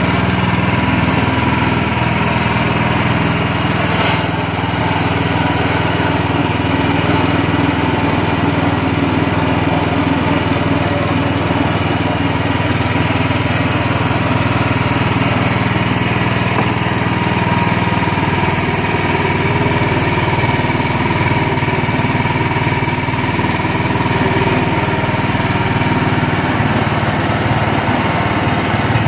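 Small gasoline engine running steadily, driving a screw press that squeezes grated coconut into milk. Its low end turns rougher about two-thirds of the way through.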